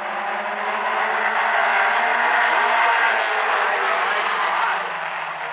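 A pack of mini stock race cars running hard around the oval. The engine noise swells as they go by, loudest about three seconds in, then eases off.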